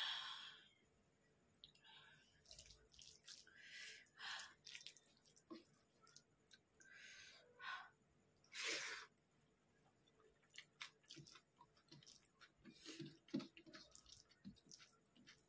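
Close-miked eating sounds: irregular wet chewing and mouth noises as rice and curry are eaten by hand, with fingers mixing rice on a metal plate. A short breathy burst comes right at the start.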